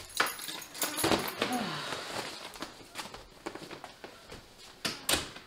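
Footsteps, bag rustling and scattered clicks as people come in with their luggage, with keys clinking onto a wall key hook near the start. A brief wordless voice sound about a second and a half in.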